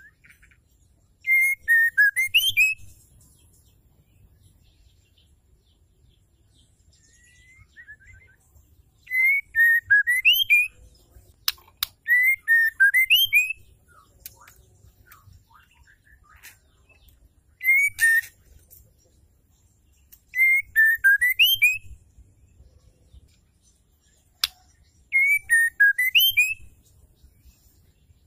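Female white-rumped shama calling: six short whistled phrases, each a quick run of falling and rising notes, a few seconds apart, with a few sharp clicks between them.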